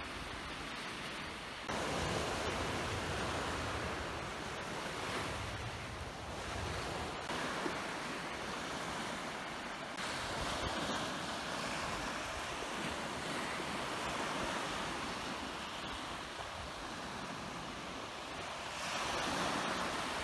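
Sea waves breaking and washing onto the beach, swelling louder three times about eight seconds apart, with some wind rumbling on the microphone.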